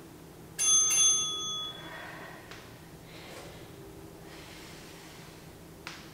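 Interval timer's bell chiming, struck twice in quick succession and ringing for about a second: the signal that the 10-second plank hold is over and the 20-second work round begins.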